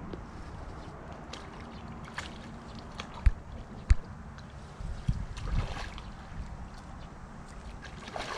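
Lake water lapping and wind, with a hooked carp thrashing and splashing at the surface near the end as it is played in close. Two sharp low knocks come about three and four seconds in.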